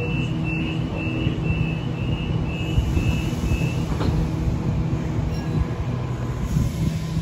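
Sydney Trains Waratah A-set door-closing warning beeps, a high tone repeating about twice a second for some four seconds, ending with a sharp knock as the doors shut. The electric train then pulls away with a steady low hum.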